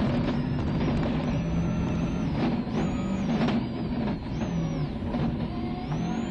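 The turbocharged four-cylinder engine of a Mitsubishi Lancer Evo 6.5 WRC rally car running hard at speed on a gravel stage, heard from inside the cabin. Its note breaks and changes pitch several times with gear changes and lifts off the throttle. A few sharp knocks come through near the middle as the car crosses the rough road.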